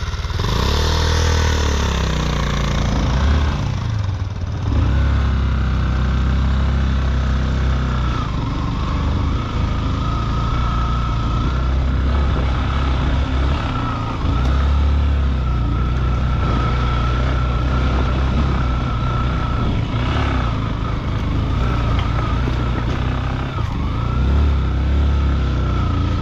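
Motorcycle engine running steadily as the bike is ridden off-road, with a thin steady high whine joining about eight seconds in.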